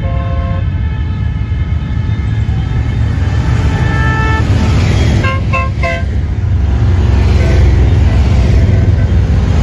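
A long column of touring motorcycles rumbling past at parade pace, with horns tooting over the engines. There is a held honk right at the start and longer tones about two to four seconds in. About five seconds in comes a quick run of short beeps.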